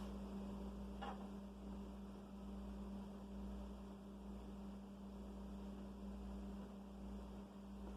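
Steady low electrical hum, with one faint tick about a second in.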